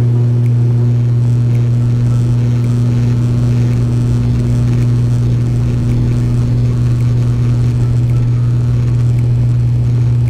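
Steady drone of the ATR 72-500's Pratt & Whitney PW127 turboprop engine and six-blade propeller, heard inside the passenger cabin. It holds one low, unchanging hum throughout.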